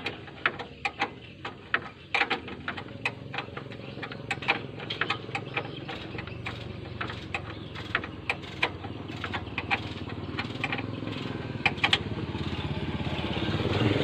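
Irregular sharp clicks and taps of hand work fitting a car horn, over a steady engine hum that grows louder near the end.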